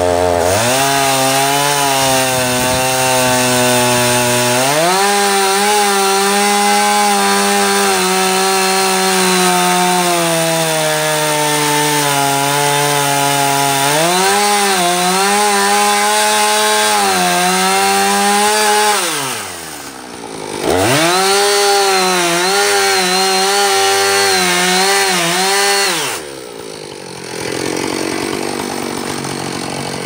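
Two-stroke gas chainsaw cutting into a large rotten walnut log, the engine's pitch sagging and recovering as the chain bites into the wood. Twice, about two-thirds through and again near the end, the throttle is let off and the engine drops toward idle before revving back up.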